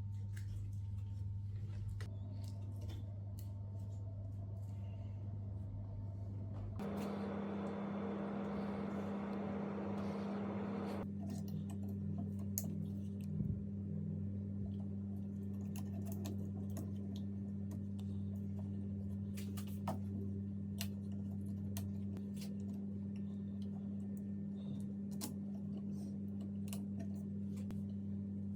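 Steady low machine hum with scattered small clicks. About seven seconds in, a louder whirring sets in for about four seconds, and the hum shifts higher and stays there.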